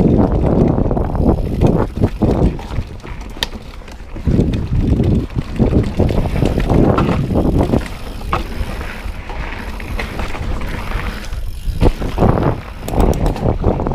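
Mountain bike ridden fast along a dirt forest singletrack: tyres rolling over the trail and the bike rattling over bumps, with scattered sharp clicks and knocks. It is louder at the start and again near the end, and eases in between.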